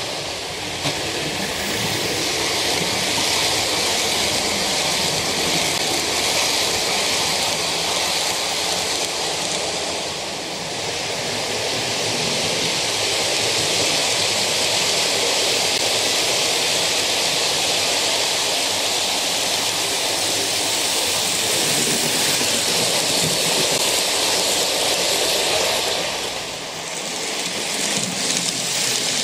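OO gauge model trains running past close by: wheels and motors on the track give a steady rushing rumble, dipping briefly about ten seconds in and again near the end.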